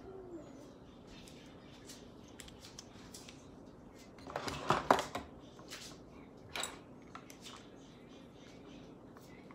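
Small clicks and scrapes of a liquid lipstick tube and its applicator wand being handled, with a dense run of sharp clicks about four to five seconds in as the wand goes back toward the tube, and one more click a little later.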